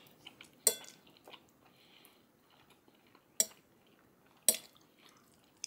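A metal fork clinks sharply against a ceramic plate three times as food is scooped, with faint chewing between.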